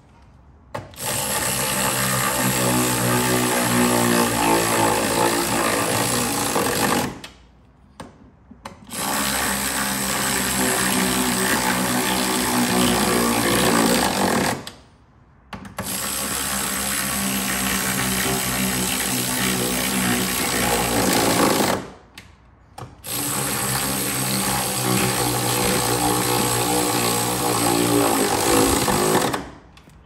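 Cordless power tool with a socket running 10 mm nuts down onto the shifter plate: four runs of about six seconds each of steady motor whine, with short pauses between.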